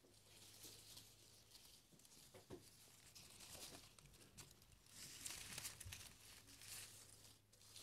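Faint rustling and crinkling of dry sweet gum leaves being handled, with the crackle strongest about five to six seconds in.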